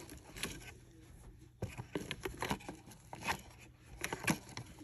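Scattered light clicks, taps and rustles of gloved hands handling small jars of colour powder on a tabletop.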